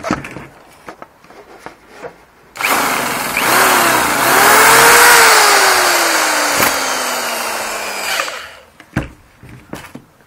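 Starting attempt on an OS Max 10 FP model glow engine: a few sharp clicks as the propeller is flicked by hand, then about six seconds of loud whirring that sets in suddenly, rises briefly and falls slowly in pitch before stopping. A few more knocks follow near the end.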